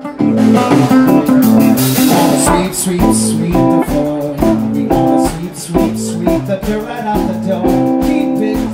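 Live rock band playing: electric and acoustic guitars over a drum kit, with steady drum hits and cymbal crashes. The music starts abruptly at the very beginning.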